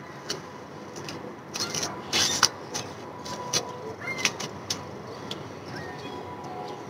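A series of short clicks and rustles from gear being handled, the loudest a little over two seconds in, over steady outdoor background noise.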